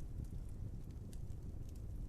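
Wood fire burning with a steady low rumble and scattered sharp crackles and pops.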